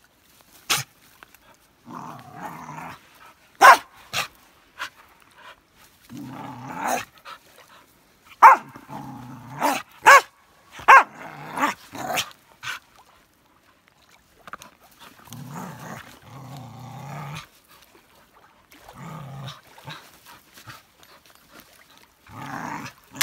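Norwegian Elkhound worked up over a stick, giving rough growling grumbles in short spells of a second or two. Sharp, loud barks or yaps come in between.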